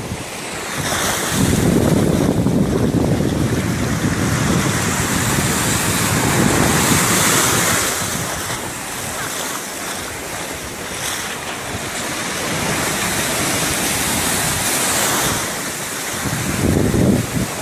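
Small surf washing up onto a sandy beach with foam rushing over the shallows. Wind buffets the microphone in gusts, heaviest over the first several seconds and again briefly near the end.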